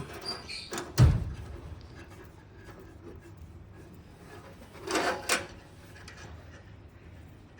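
Knocks from handling: one sharp, loud thump about a second in, then two quick knocks close together around five seconds in.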